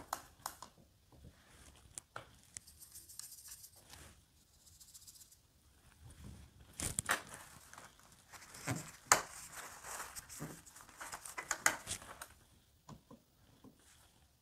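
Faint, scratchy strokes of a watercolour brush mixing paint, with a few light taps.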